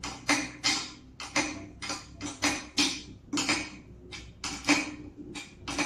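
Ratchet wrench clicking in quick back-and-forth strokes, about three a second, as it tightens the central bolt on a barber chair's round steel base plate, the joint that carries the client's weight.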